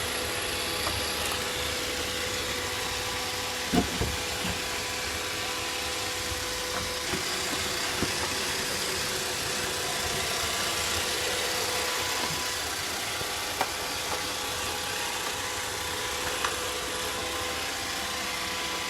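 iRobot Roomba robot vacuum running with a steady whir and hum from its motors and brushes, broken by a few short knocks, the loudest about four seconds in.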